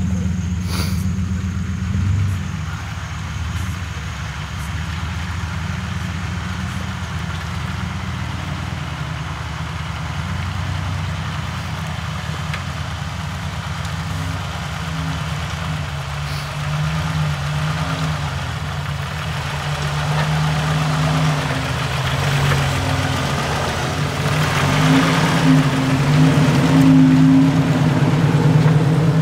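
Engines of lifted off-road Jeeps running at low speed as they crawl along a snow-covered trail, building louder near the end as the lead Jeep passes close by on its big snow-packed tyres.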